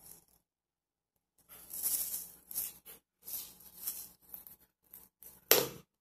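Small objects being handled on a counter: irregular rustling and rattling from about a second and a half in, with one sharp knock about five and a half seconds in.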